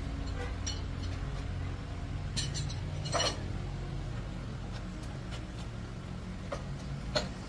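A few sharp metallic clinks, the loudest about three seconds in and two more near the end, over a steady low hum.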